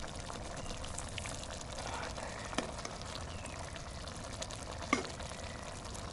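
Shakshuka with stewed meat sizzling and bubbling in a hot kazan while a metal spoon scoops it into a stainless steel bowl. Two sharp clinks of the spoon on metal come about two and a half seconds and five seconds in.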